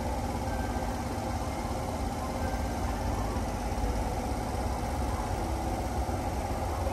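Hanshin 8000-series electric train standing at the platform, its onboard equipment giving a steady hum with faint steady tones over a low rumble.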